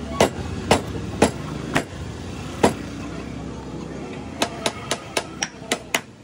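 Sharp hammer blows on metal at a scooter's rear wheel hub, a step in replacing its worn wheel bearing: five strikes about half a second apart, then a quicker run of about ten lighter strikes from about four seconds in. A low rumble of road traffic runs underneath in the first half.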